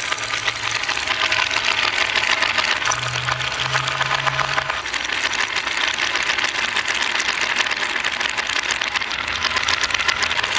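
Many glass marbles rolling down a wooden plywood marble run, clicking against wooden blocks and against one another in a dense, continuous clatter.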